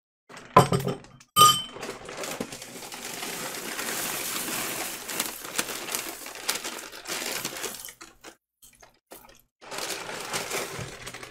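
Frosted flakes cereal poured from its plastic bag liner into a bowl of milk: a steady dry rustle of falling flakes lasting several seconds, after two sharp clinks near the start. Plastic bag crinkling near the end.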